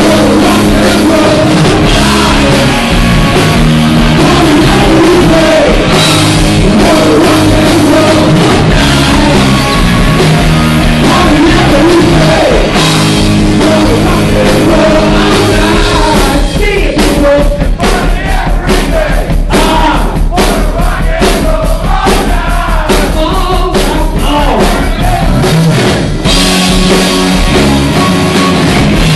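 Live rock band playing loud: distorted electric guitar, electric bass and drum kit. For about ten seconds past the middle the held guitar chords thin out and the drum hits come to the fore, then the full band comes back near the end.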